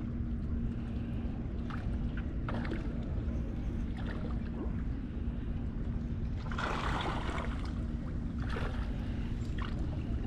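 Waterside ambience: a steady low rumble with a constant low hum under it, and short hissy swells about six and a half and eight and a half seconds in.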